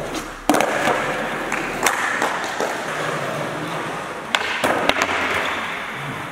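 Skateboard wheels rolling on a sports hall's hard floor, with the sharp snap of a tail pop and board clacks. About four and a half seconds in comes a quick run of hard clacks as the board comes down and gets away from the skater on a missed flatground trick.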